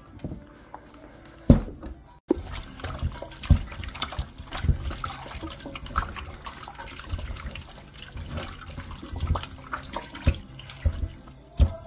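Tap water running into a stainless steel colander of raw chicken wings as hands rub and turn the pieces, with frequent knocks and splashes. The water starts about two seconds in, after a loud knock.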